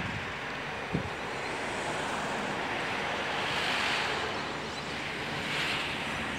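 Outdoor wind noise, a steady hiss that swells twice, with a single soft bump about a second in.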